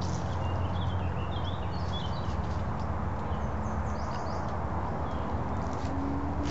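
Small birds chirping in short, rapid calls over a steady low rumble; the chirps come mostly in the first half and again briefly later on.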